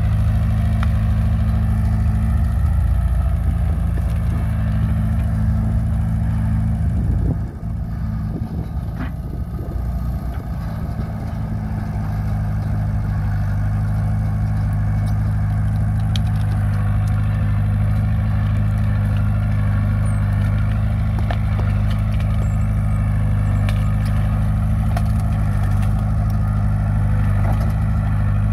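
Caterpillar bulldozer's diesel engine running steadily. About seven seconds in, it dips in level and runs rougher for a few seconds, then settles back to its steady note.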